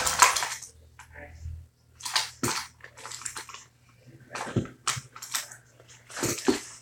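Hands rummaging through small belongings: rustling and light knocks and clicks of objects being moved about, in several short bursts.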